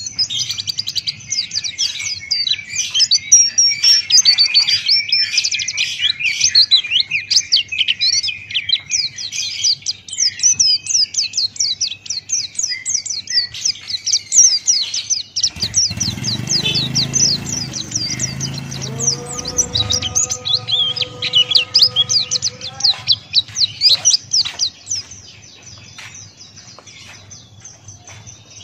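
Pleci buxtoni (white-eye) singing a rapid, continuous chattering song of high chirps and trills, thinning to softer scattered chirps near the end. A low rumble sounds briefly midway.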